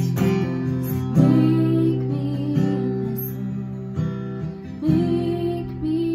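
Strummed acoustic guitar accompanying a woman singing a slow worship song.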